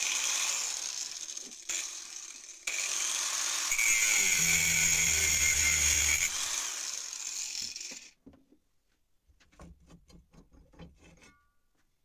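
Angle grinder with a thin cut-off disc running at speed and cutting into the rusted steel neck of an old shovel: a steady high whine that eases for about a second near the start, then bites harder before cutting off about eight seconds in. A few faint clicks of the metal being handled follow.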